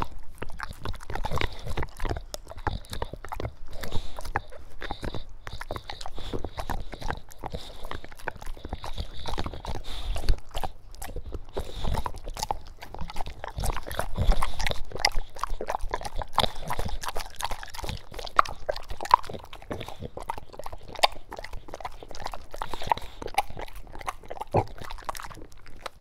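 A dog eating wet food from a bowl: continuous wet smacking and chewing with grunts, many irregular small clicks and squelches.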